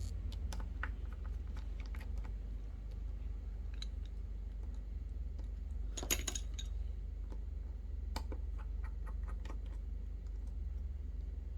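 Scattered small clicks and taps of a precision screwdriver and tweezers on an iPhone 12 screen's small metal parts as its tiny screws are taken out, with a short cluster of louder clicks about six seconds in. A steady low hum sits underneath.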